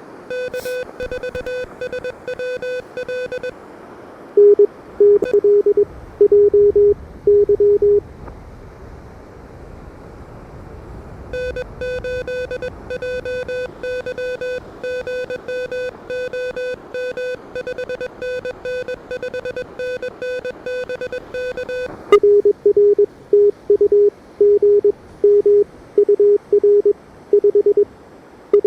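Morse code (CW) from an Elecraft KH1 ham radio transceiver over steady band hiss. Keyed tones come at two different pitches, taking turns: a higher, buzzier set at the start and again from about 11 to 22 seconds in, and a lower, louder set from about 4 to 8 seconds in and again from about 22 seconds on. Between about 8 and 11 seconds there is only hiss.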